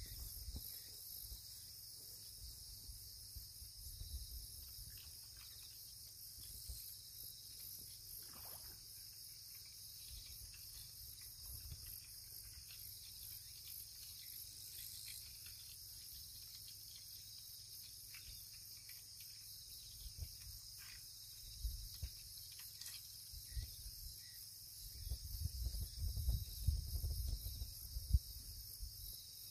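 Steady chorus of crickets and other insects, a high shrill trilling held throughout. Low rumbling bursts come and go, strongest near the end.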